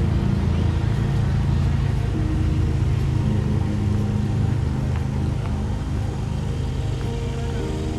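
An engine running steadily nearby, a loud, even low rumble with a steady hum.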